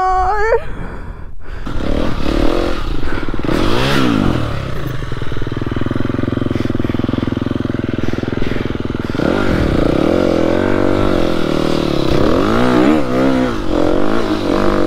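Motocross dirt bike engine running under riding load, its revs rising and falling several times, with a steadier stretch in the middle and a run of quick rises and drops near the end.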